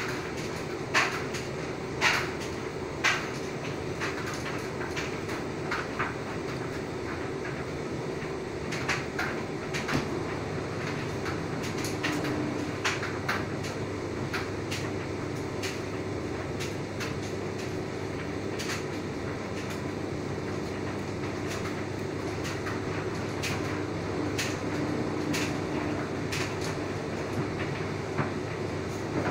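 LG front-loading washing machine in its wash cycle, the drum turning wet laundry through water. A steady motor hum runs throughout, with irregular sharp knocks as the load drops inside the drum.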